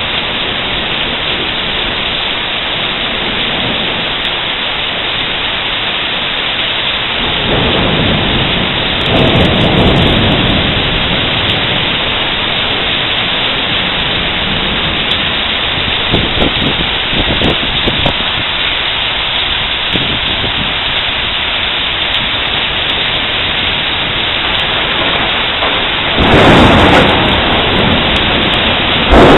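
Steady rain falling hard through a thunderstorm, with rolls of thunder swelling up about a quarter of the way in and again, louder, near the end.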